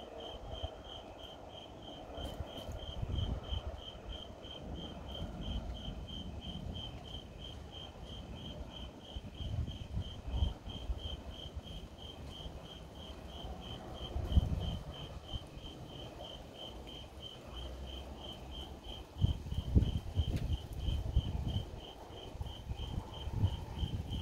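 A cricket chirping in a steady, even rhythm, about two and a half high chirps a second. Irregular low rumbles come and go underneath, strongest in the second half.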